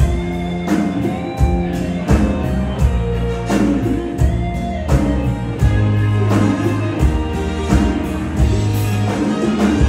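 Live band playing an upbeat Thai Isan luk thung/mor lam instrumental passage with a steady beat and bass line.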